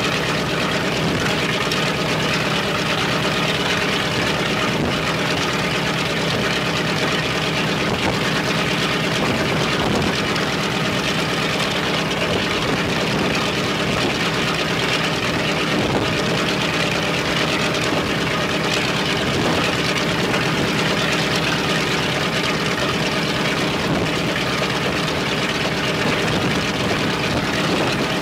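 The Il-14T's left Shvetsov ASh-82T 14-cylinder radial piston engine running steadily at an even speed, with no change in pitch or level.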